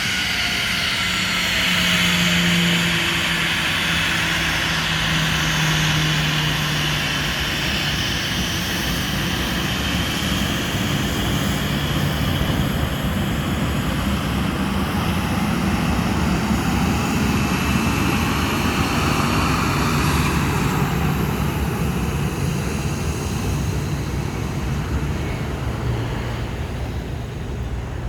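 Boeing 737 NG jet airliner's CFM56-7B turbofan engines running as the aircraft passes: a steady loud roar with a high whine that sinks slightly in pitch, the high end fading over the last several seconds.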